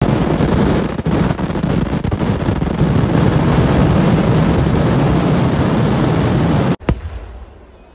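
Massive fireworks barrage: a dense, unbroken din of explosions, heaviest in the low end, that cuts off abruptly near the end, followed by a single sharp bang and quieter scattered cracks.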